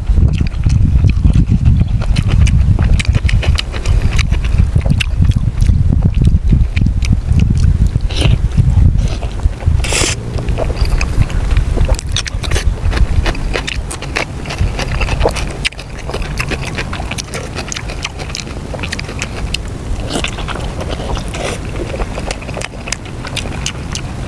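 A person chewing and biting stewed pork and raw vegetables close to the microphone, with many wet, smacking mouth clicks. A low rumble of wind on the microphone fades out about nine seconds in.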